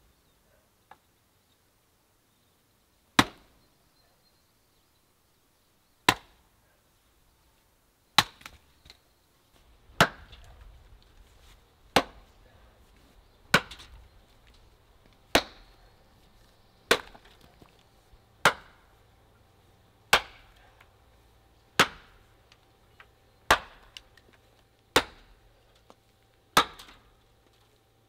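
Hand-forged train-rail axe chopping into a log round, about fourteen sharp chops. Three come a few seconds apart, then from about a third of the way in they fall steadily, roughly one every second and a half.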